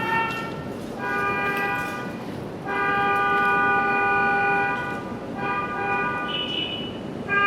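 Car horn honking in a string of steady blasts. A one-second blast comes about a second in, a longer one of about two seconds follows, then shorter toots towards the end.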